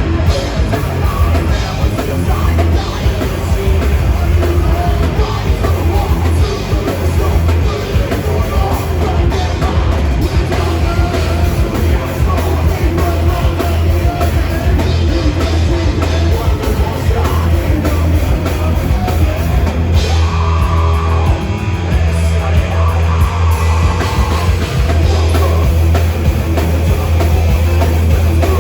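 Heavy metal band playing live at full volume: distorted guitars and drums over a heavy, steady low end.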